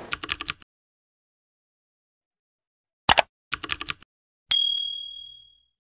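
Subscribe-button end-card sound effects: a quick run of mouse clicks, a pause, then more clicks about three seconds in. A single bright notification-bell ding follows and rings down over about a second.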